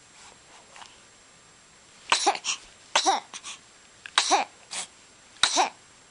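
A baby's four sharp, explosive bursts of breath, about a second apart, each with a brief voiced squeak and a smaller burst just after.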